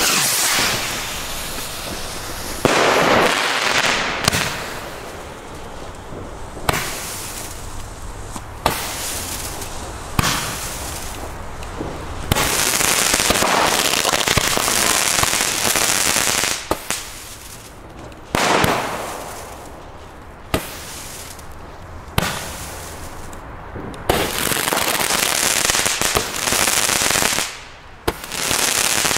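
ALDI 'Eruption' consumer fire-pot firework battery firing its shots one after another, about a dozen in all. Each shot is a sudden bang followed by a second or two of hissing noise as it throws up a spray of sparks.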